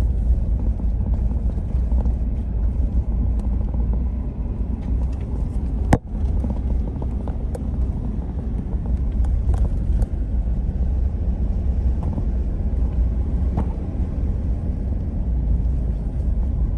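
Pickup truck driving, heard from inside the cab: a steady low rumble of engine and road noise, with light rattles and one sharp knock about six seconds in.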